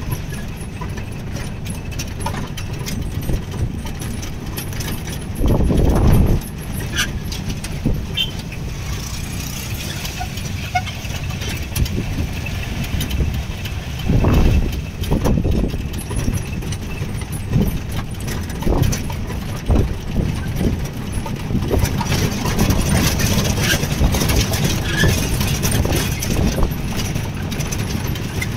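Old open-sided jeep driving along, its engine running steadily with body rattles and clicks and wind noise through the open sides; two louder low rumbles come about six and fourteen seconds in.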